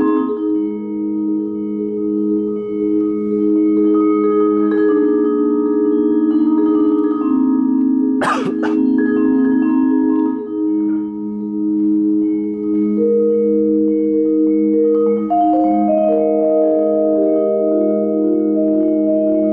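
Vibraphone played with four mallets: slow chords whose notes ring on for seconds and overlap as new ones are struck. There is a single sharp knock about eight seconds in.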